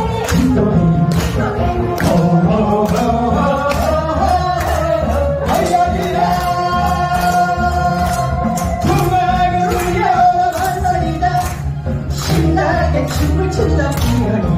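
Korean trot song sung live as a male-female duet over a backing track with a steady beat, the audience clapping along in time. A long note is held in the middle.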